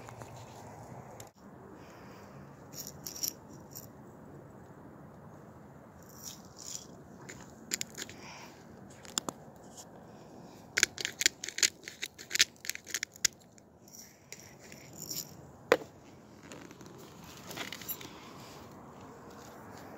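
Dishes and utensils being handled: light scrapes and clinks, with a quick run of sharp clicks about eleven seconds in and one sharp knock a little later.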